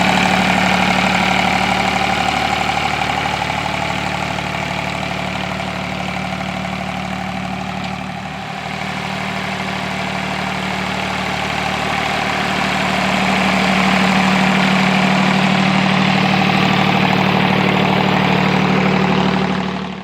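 1947 John Deere M tractor's two-cylinder engine running steadily, easing slightly quieter around the middle and louder again past the halfway point, then cutting off abruptly at the end.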